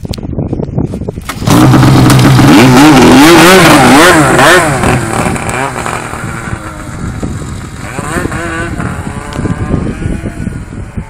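Snowmobile engine revving hard, its pitch wavering up and down. It comes in suddenly about a second and a half in, then drops off and fades after about four and a half seconds as the sled moves away.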